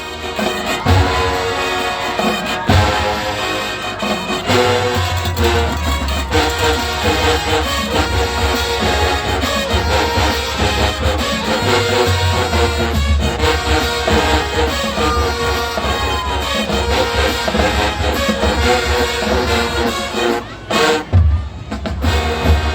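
High school marching band playing, brass horns over a heavy, steady drum beat, with a short break in the music near the end.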